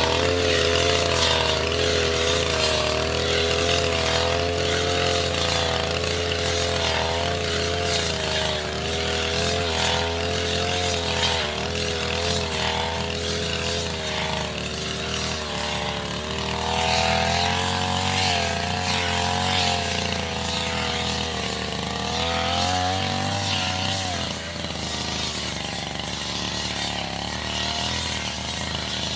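Backpack brush cutter's small petrol engine running throughout, its pitch wavering up and down as the throttle is worked.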